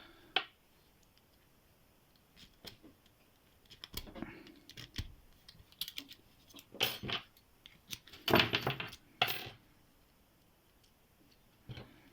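Metal clicks and rattles of a pick and tension wrench working Qualtec padlocks, zipping the pins, with the locks clattering as they are handled. The clicks come in scattered clusters with quiet gaps, loudest a little past two-thirds in.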